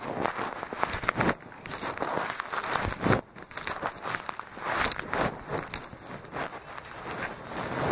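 Rustling, crackling handling noise from a covered camera's microphone rubbing against fabric, with irregular knocks and scuffs.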